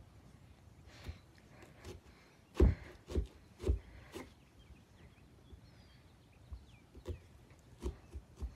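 Pumpkin being carved with a small hand carving tool: irregular dull knocks and thumps as the tool works into the pumpkin wall, the loudest three coming about half a second apart near the middle.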